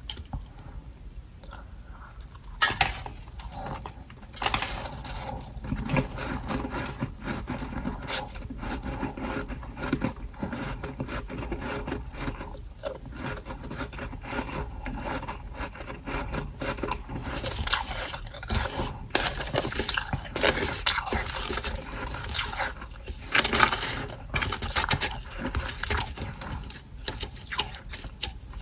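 Freezer humidifier frost being scraped, a dense, continuous crackling with sharp clicks throughout.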